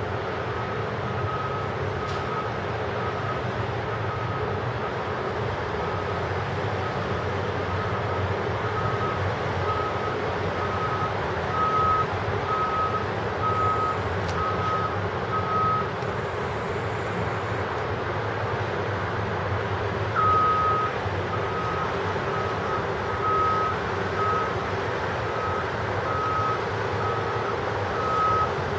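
A truck's reversing alarm beeping, a single steady tone about three beeps every two seconds; it stops for a few seconds past the middle and then starts again, over a steady low rumble.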